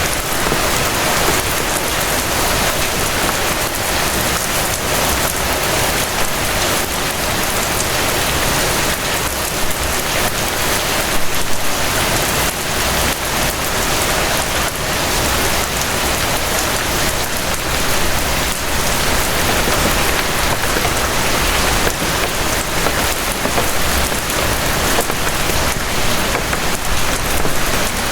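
Steady rain falling, a dense patter of raindrops on surfaces.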